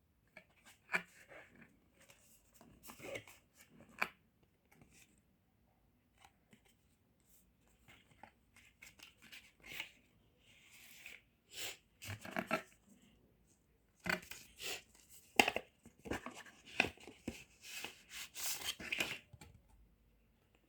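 Packaging being opened by hand: irregular snips, tears and rustles, coming thicker in the last several seconds.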